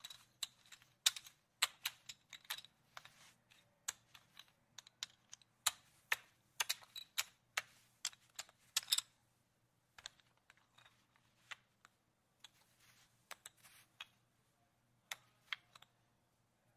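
Casino chips being moved and handled, clacking against each other in quick, irregular clicks. The clicks are dense for the first half and sparser later on.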